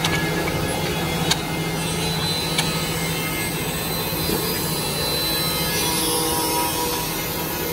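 A six-spindle CNC tenoning machine (Fuvico WM-226CNC) running, its cutter spindles milling tenons on wood with a steady hum. There are two sharp clicks, about a second and a half in and again near the three-second mark.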